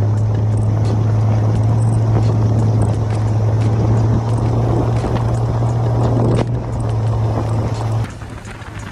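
Honda Ridgeline's V6 engine held at steady revs with a constant low drone, over the rough rushing noise of tyres on loose gravel and scattered ticks of stones. The sound cuts off abruptly about eight seconds in.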